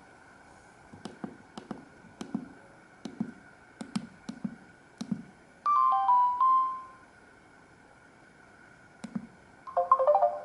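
Samsung SGH-D780 phone's keys clicking about eight times in quick succession, then a short descending run of electronic tones from its speaker. Another key click follows, and the next ringtone begins near the end.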